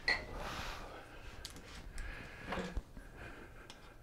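Hand-tool and parts handling on a mobility scooter tiller: a sharp click at the start followed by a brief hiss, then scattered small clicks and a knock.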